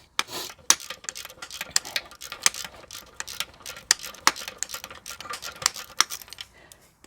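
Hand ratchet wrench clicking in quick, irregular runs of sharp clicks, working on a torque converter bolt. The clicking stops shortly before the end.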